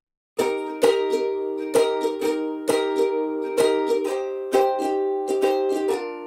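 Background music that starts about half a second in after silence, with chords struck on a plucked string instrument in a steady rhythm.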